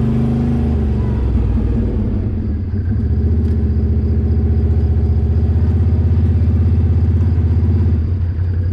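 ATV engine running steadily, its note shifting about two and a half seconds in to an even, pulsing beat and changing again near the end.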